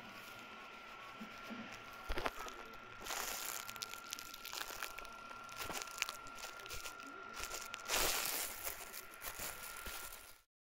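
Rustling and crinkling with small crackles, rising in louder bursts about two, three and eight seconds in, over a faint steady high tone; it all cuts off suddenly near the end.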